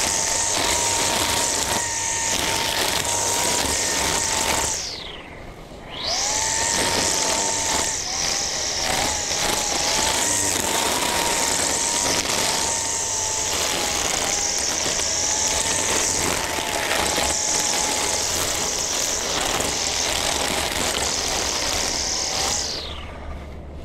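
String trimmer running at full throttle, cutting grass with a steady high whine. About five seconds in the throttle is let off, the pitch drops, and it revs straight back up. Near the end the throttle is released again and it winds down.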